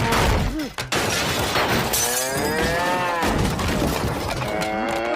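A cartoon character wailing in pain after being struck by a spitball. A harsh noisy burst at the start gives way to long drawn-out cries whose pitch swells and falls, one about two seconds in and another near the end.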